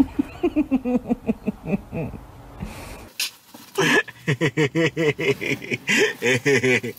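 A woman's wordless vocal sounds in two stretches: drawn-out sounds over the first two and a half seconds, then a quicker run of pulsing sounds from about four seconds in.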